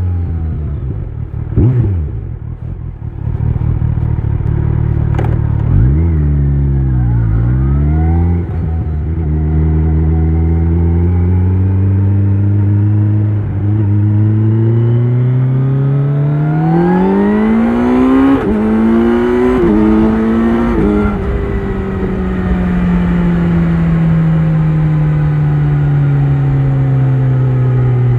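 2025 Kawasaki Z900's inline-four engine through an Akrapovic exhaust, heard on board while riding. It slows with a couple of quick rev changes at gear changes, holds a steady note, then pulls up through the revs with brief dips at upshifts. Near the end it rolls off with the pitch falling slowly.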